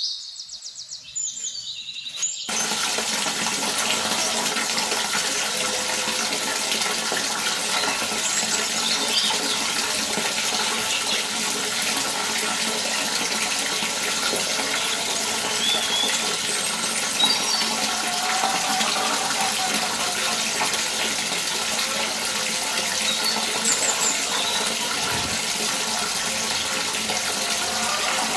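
Water running steadily in a continuous gush, starting suddenly about two and a half seconds in, with a few faint bird-like chirps over it.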